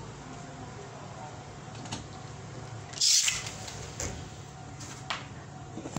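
A steady low hum, broken by a brief, loud hissing rush about three seconds in and a few short knocks after it.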